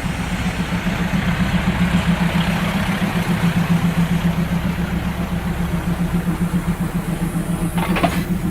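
An engine running steadily with a fast, even throb, like a heavy motor idling.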